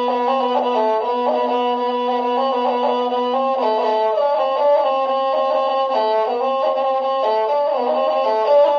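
Instrumental background music: a bowed string instrument plays a stepping melody over a low note held through the first half.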